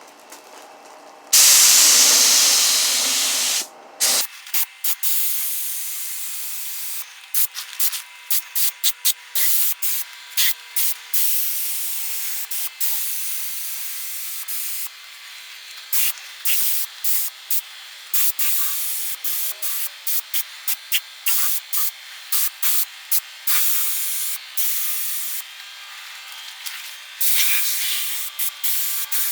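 Compressed-air paint spray gun spraying acrylic enamel, hissing in a long blast about a second in, then in many short trigger-pull bursts.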